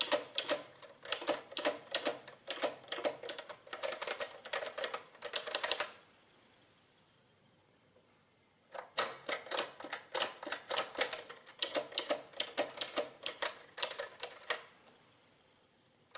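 Keys of an Underwood 300R mechanical adding machine pressed in quick succession, each press giving a sharp clack from the keyboard and number-entry mechanism. The clacks come in two runs of about six seconds with a pause of a few seconds between.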